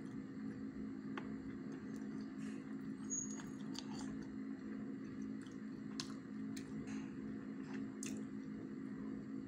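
Metal fork clicking against a glass plate as it cuts into sticky rice cake, a few sharp clicks spread through, with soft chewing. A steady low hum runs underneath.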